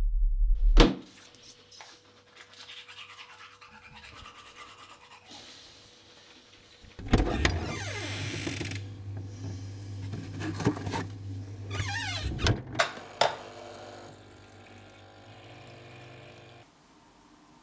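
A low drone ends in a sharp hit about a second in. Then come kitchen sounds: a refrigerator opened and rummaged in, with several sharp clicks and knocks, and near the end a pod coffee machine humming as it pours coffee into a cup.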